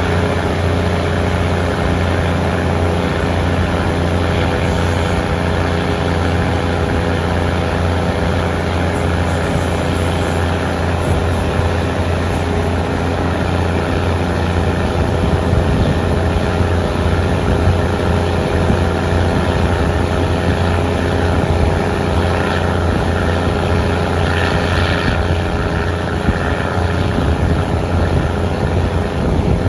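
Diesel train running, heard from a carriage window: a steady low engine hum with the rush of the ride, growing a little louder about halfway through as the train gathers speed.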